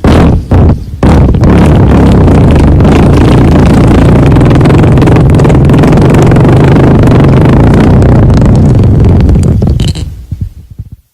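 Farting: two short blasts, then one long, loud, low buzzing fart of about nine seconds that sputters out near the end.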